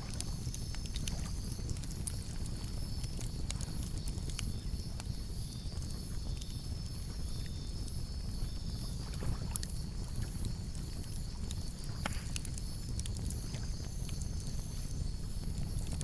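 Wood campfire crackling, with scattered sharp pops over a steady low rumble of burning. High above, insects chirp in an even pulsing rhythm of about two to three a second.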